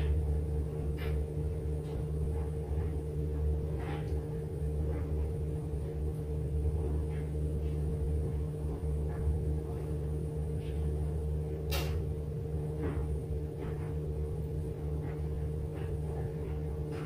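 Steady low hum with a faint higher tone in it, under scattered light taps and clicks of a makeup brush and compact being handled; one sharper click comes about twelve seconds in.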